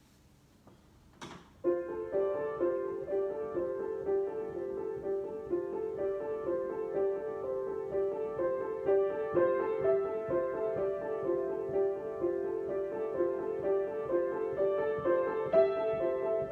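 Solo piano improvisation: a short click, then the piano starts about a second and a half in, playing a repeating pattern of notes in the middle register.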